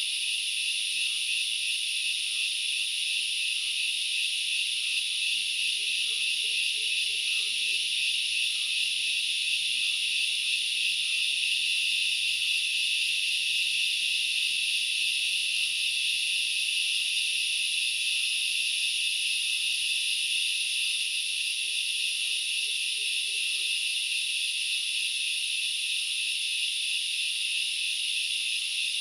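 Dense chorus of forest insects shrilling continuously and evenly in two high bands, with a fainter chirp repeating a little under twice a second beneath it.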